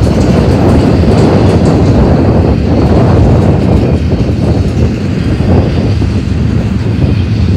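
A BNSF double-stack intermodal train's container cars roll past close by. The steel wheels on the rail make a loud, steady rumble, with a few sharper clacks mixed in.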